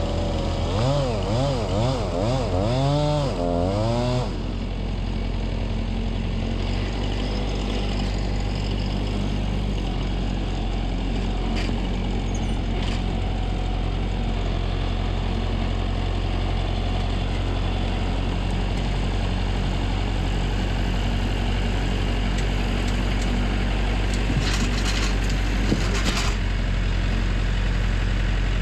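A chainsaw revving up and down rapidly several times for about four seconds, over the steady low hum of a heavy engine running, which carries on alone afterwards.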